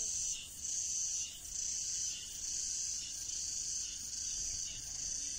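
A high, shrill insect chorus that swells and dips in phrases of about a second each.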